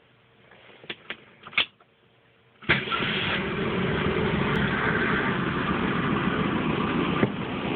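A few light clicks, then the 1967 Mustang's Ford 200 cubic-inch inline-six catches suddenly about two and a half seconds in and keeps running steadily. It is a warm start, on a freshly rebuilt Autolite 1100 carburetor.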